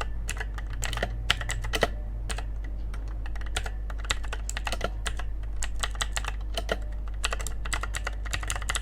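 Typing on a Cosmic Byte CB-GK-16 Firefly mechanical keyboard during a sound test: a quick, irregular run of sharp key clicks, several a second.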